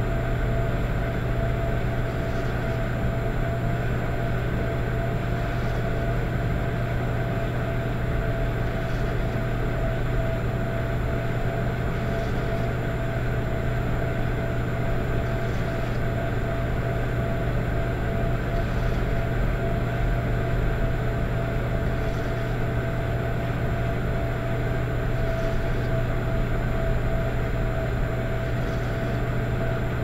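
Electric fireplace running with a steady hum and a faint steady tone above it, plus a soft swell about every three seconds that sounds like rhythmic soft snoring.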